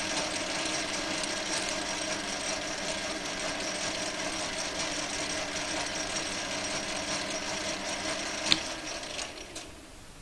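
Small benchtop metal lathe running steadily, its motor and gears making a hum with several steady tones. A sharp click about eight and a half seconds in, then the running sound dies away near the end as the lathe stops.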